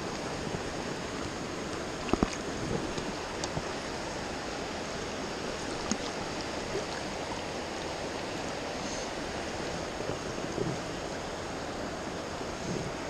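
Shallow river water rushing steadily over stones, with a few brief knocks and splashes on top, the clearest about two seconds in.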